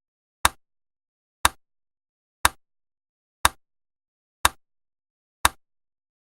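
Short sharp clicks, evenly spaced one a second, six in all, with silence between them.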